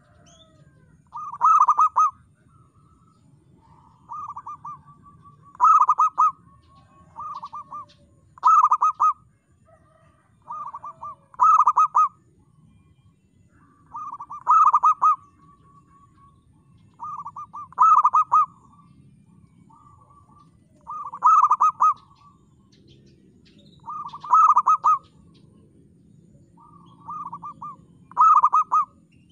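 Zebra dove (perkutut) cooing its song over and over: about every three seconds a cluster of clear, ringing coos, with softer single coos between the phrases.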